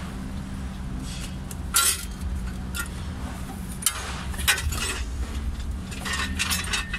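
Metal hand tools clinking against engine parts during work in an engine bay: a few scattered sharp clinks, the loudest about two seconds in, over a steady low hum.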